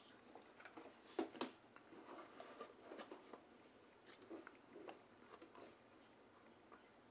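Fingers rubbing and pressing an adhesive vinyl chassis protector down onto an RC truck's plastic chassis: faint, scattered crinkling and rubbing, with two sharper taps a little over a second in.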